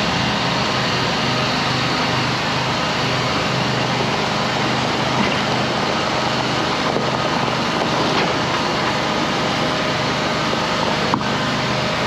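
Pickup truck engine running steadily as it slowly pulls a loaded utility trailer across gravel.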